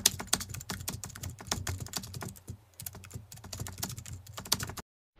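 Typing sound effect: rapid, uneven keystroke clicks that go with text being typed out on screen, stopping suddenly near the end.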